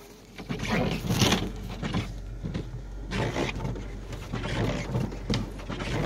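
Snow being swept off a car's windshield by a bare hand: irregular rustling, scraping sweeps over a steady low hum.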